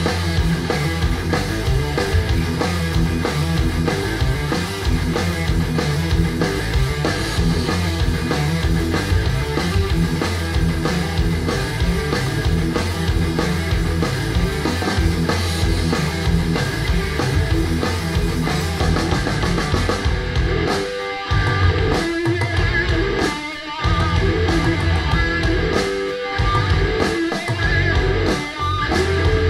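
A stoner-metal track with distorted electric guitar and drum kit, played through Audiolab Symbol two-way bass-reflex tower loudspeakers and picked up by a microphone in the room. The riff breaks off briefly a few times in the second half.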